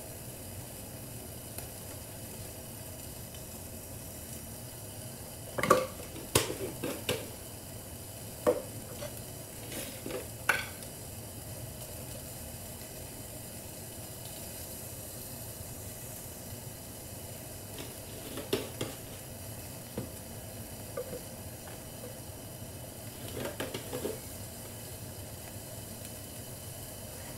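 Short clicks and clatters in a few brief clusters as ground spices are added to a plastic bowl, the loudest about six seconds in, over a steady hiss.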